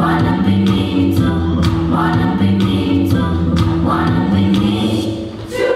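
A group of children's voices singing a song together, with new sung phrases starting about once a second over a steady low accompaniment.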